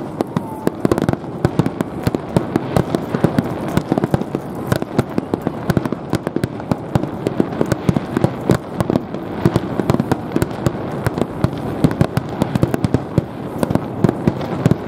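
Fireworks display: aerial shells bursting in a rapid, unbroken barrage of bangs, several a second.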